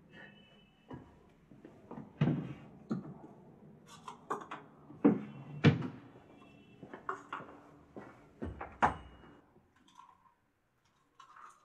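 Irregular knocks, clicks and clatters of objects being handled, a few with a short ring after them, growing sparser and fainter near the end.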